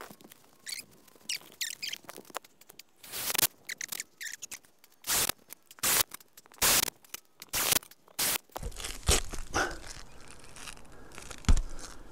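Cordless drill/driver run in a series of short trigger bursts at a roof mount on shingles, then handling knocks with one sharp thump near the end.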